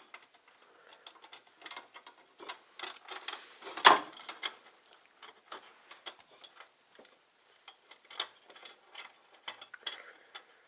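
Small irregular metal clicks and scrapes as a metal corner bracket is worked into the channel of a black metal picture-frame rail, with one sharper knock about four seconds in.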